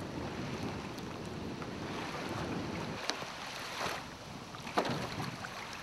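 Wind buffeting the microphone over small waves lapping at the shore, with two brief knocks about three and five seconds in.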